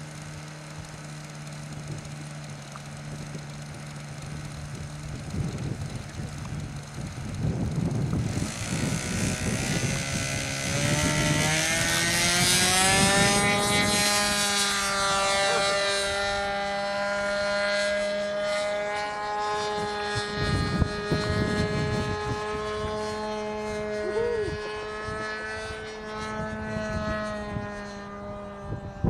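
Motor and propeller of a radio-controlled Hangar 9 P-51 PTS model airplane. It runs at a low idle, then throttles up with a rising whine, loudest about twelve seconds in. It then settles into a steady high-pitched drone as the plane takes off and climbs away.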